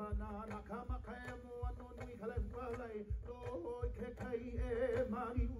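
Hawaiian chant sung over a slow, steady drumbeat, the live music for a hula dance.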